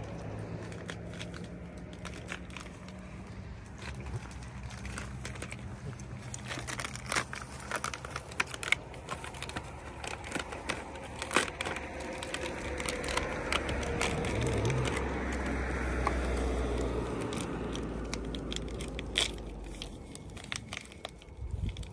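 Close, irregular crinkling, crackling and crunching as food is unwrapped and broken apart by hand for dogs feeding at ground level. A low rumble swells and fades in the middle.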